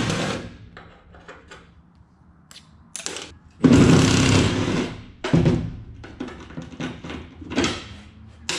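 Cordless driver spinning out Phillips-head bolts from an aluminium ute tray's side rail: a short burst at the start, then a longer run of about a second and a half a few seconds in and a brief one after it. Light clicks and taps follow near the end.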